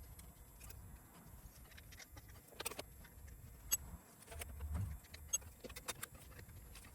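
Scattered light clicks and small metallic ticks with a soft dull bump or two, from tools and small parts being handled during hand work on the skid steer.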